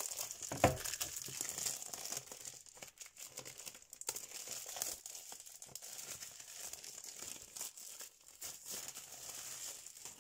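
Plastic shrink-wrap on a boxed kit crinkling and crackling in irregular rustles as the box is handled and the wrap pulled open, with a sharper crackle a little under a second in.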